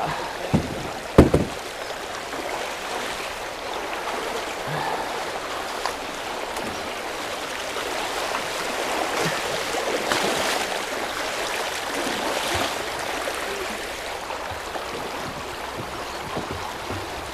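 Shallow river water rushing steadily over stones in a riffle, with two short knocks about a second in.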